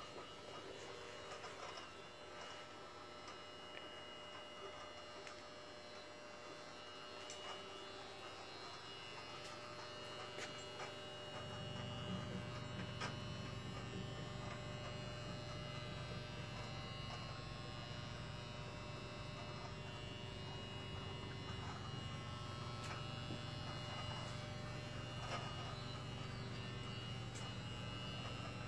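Steady hum of basement mechanical equipment, which grows deeper and louder about eleven seconds in, with scattered light clicks and knocks.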